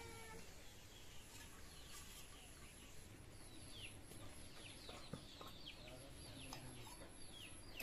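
Faint bird chirps: a run of short chirps, each falling in pitch, mostly in the second half, over a quiet background hiss.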